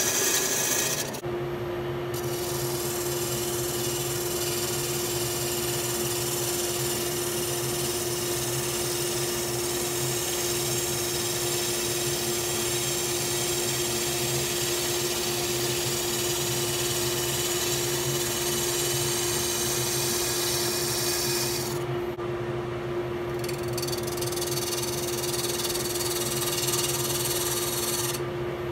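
PSI Turncrafter wood lathe running with a steady hum while a turning tool cuts into a spinning black walnut blank with a continuous hiss. The hiss stops briefly about a second in, again about three quarters through, and just before the end, as the tool leaves the wood.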